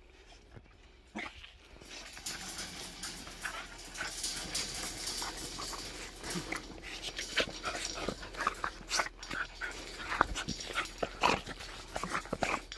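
Young dogs whining and panting in excitement as they jump up to be petted, among scuffling and short knocks, starting about two seconds in.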